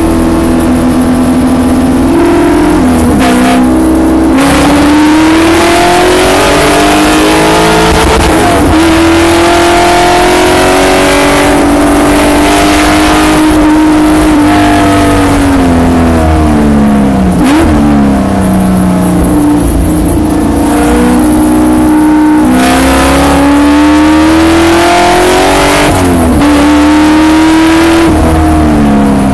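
Spec Corvette's V8 racing engine, heard from inside the car at full race pace. It revs up through the gears, its pitch climbing in long sweeps and dropping at each shift, with a quick drop and recovery a little past halfway as the car brakes and downshifts for a corner.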